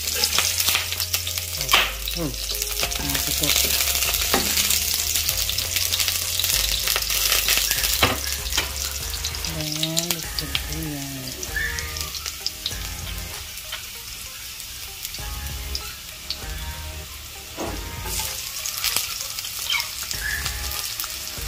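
Chopped garlic sizzling and frying in hot cooking oil in a nonstick wok, with a few sharp clicks. The sizzle eases in the middle and picks up again near the end as sliced onion goes into the oil.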